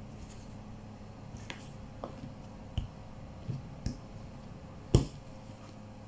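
Plastic bench scraper cutting pandesal dough on a mat: a handful of scattered taps and knocks as the scraper strikes the surface, the loudest about five seconds in, over a steady low hum.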